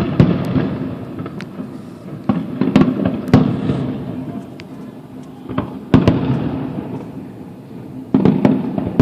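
Aerial fireworks shells bursting in a run of booms, in clusters near the start, around two to three seconds in, about six seconds in and near the end, each boom trailing off in a rolling rumble.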